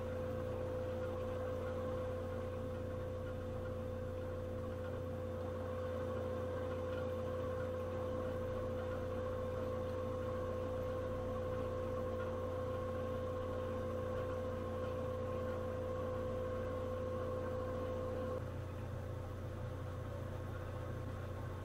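Steady machine hum with a higher steady tone over it; the tone cuts off about eighteen seconds in, leaving the lower hum.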